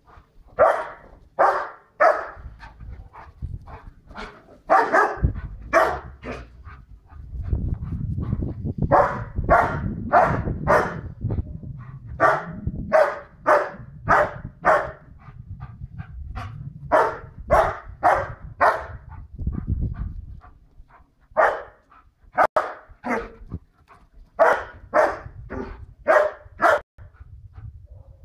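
White Swiss Shepherd barking loudly and repeatedly, in runs of about one to two barks a second with short pauses. It is territorial barking at people walking their dog on the other side of the garden wall. A low rumble runs under the barks through the middle stretch.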